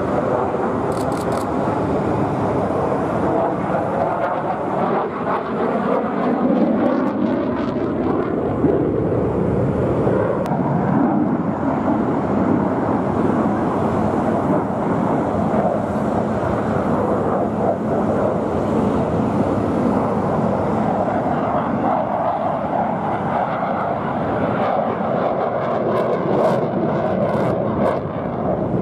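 HAL Tejas fighter's single GE F404 turbofan jet engine running continuously as the aircraft flies its display, the sound a dense, steady rush with pitch bands that slide slowly downward as it moves past.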